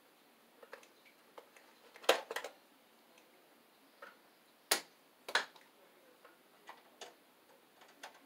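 Irregular sharp clicks and taps of a stiff copper wire being bent and pushed into place against a metal breaker panel enclosure. The loudest is a close pair about two seconds in, with two more a little past the middle.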